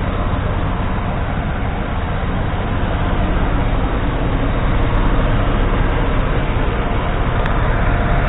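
1996 Chevy C1500's 4.3 L V6 engine idling steadily, smooth and even, shortly after a cold start.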